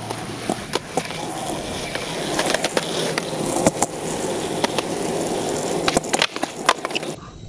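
Skateboard wheels rolling on concrete, growing louder as the board approaches, with a few scattered clacks. About six seconds in comes the sharp pop of the tail for a 360 kickflip, then more clacks as the board comes down. The rolling cuts off abruptly near the end.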